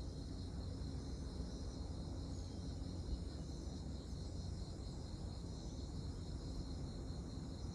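Insects trilling steadily in one continuous high-pitched band, over a low steady rumble.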